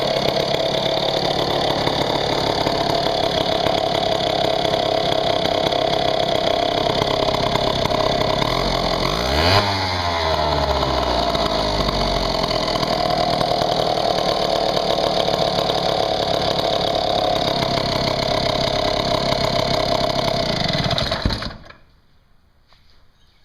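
Vintage McCulloch Model 47 77cc two-stroke gear-drive chainsaw running steadily, with a brief rise and fall in engine pitch about ten seconds in. Near the end the engine cuts off suddenly.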